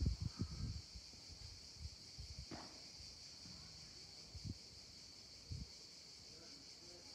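Steady high insect drone, with a few dull knocks of padel play on the court: a clear knock of the ball about two and a half seconds in and softer thumps at the start and near the middle.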